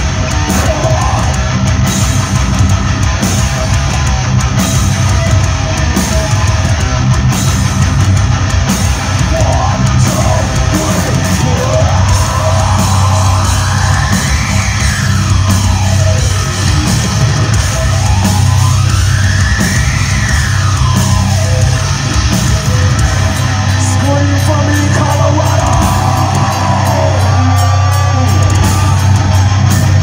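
Heavy metal band playing live in a hall: distorted electric guitars, bass and drums, loud and dense throughout, with two long rising-and-falling pitch sweeps near the middle.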